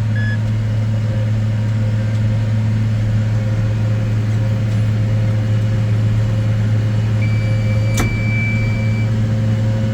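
Tractor engine running steadily under load while pulling a round baler, heard from inside the cab as a constant low hum. About seven seconds in, a thin steady tone sounds for nearly two seconds, with a sharp click partway through.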